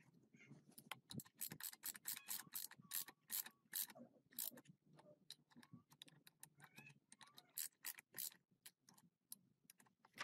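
Faint, quick, irregular mechanical clicking and ticking, with a few short squeaks.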